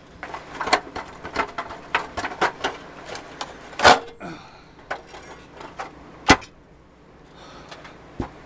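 Rusty pressed-steel parts of a Tonka toy forklift knocking and clicking against each other and the bench as they are handled, with a loud knock about four seconds in and another a little after six seconds.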